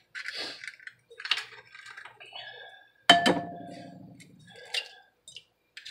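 Eggs being cracked against the rim of a mixing bowl: a few light taps and crackles of shell, and one sharp knock about three seconds in that leaves the bowl ringing for over a second.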